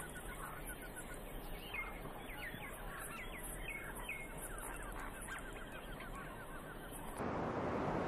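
Small songbirds chirping and trilling: short sweeping chirps and a fast trill of repeated notes over a steady background hiss. About seven seconds in this gives way to a louder, even rushing noise.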